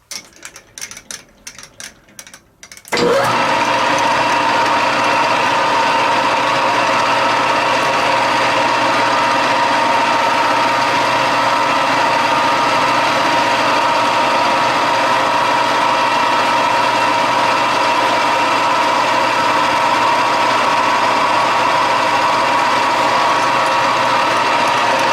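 A few light clicks and knocks, then about three seconds in a machine-shop machine tool starts abruptly and runs steadily with a constant whine, taking a spring pass (a repeat finishing cut at the same setting) on a bored hole.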